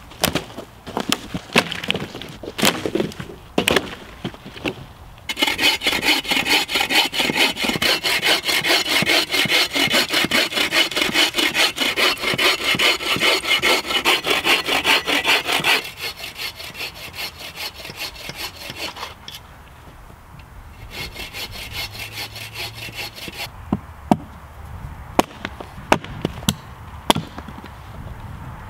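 Hand saw cutting through a damp, mossy branch in fast, even strokes for about ten seconds, then a second, shorter bout of sawing. Before the sawing, sharp cracks of dead branches being broken; near the end, separate wooden knocks as the cut logs are stacked.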